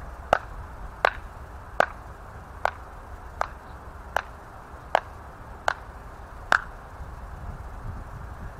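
A series of nine sharp ticks at an even beat, about three-quarters of a second apart, that stop shortly before the end, over a low steady rumble.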